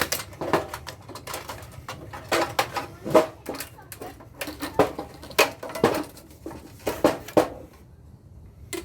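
Irregular clinks and knocks of metal parts being handled and worked on while a floodlight is taken apart for scrap, stopping about a second before the end.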